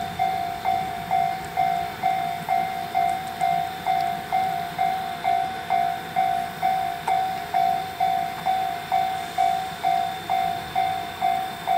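Japanese railway level-crossing warning bell ringing a steady ding-ding at about two strikes a second, the signal that a train is approaching.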